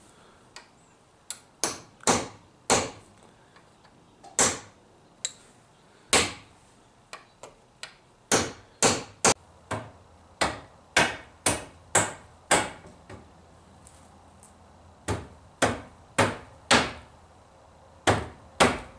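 Hammer knocking wooden trim into place on a chalkboard frame: about two dozen sharp wooden knocks, irregular and in small clusters of two to six.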